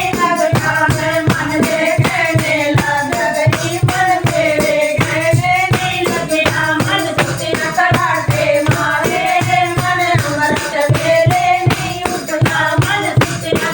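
Devotional kirtan bhajan: voices singing a melody over a steady beat of hand percussion with jingling, tambourine-like strokes.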